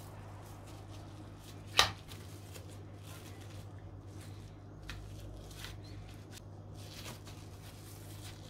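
Hands handling a minced meat mixture, with light rustles and small clicks, and one sharp tap or knock about two seconds in, over a steady low hum.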